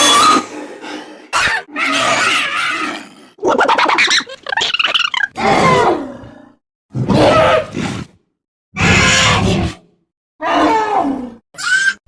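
A string of short vocal creature noises, about nine of them, each with a sliding, bending pitch, separated by brief silences.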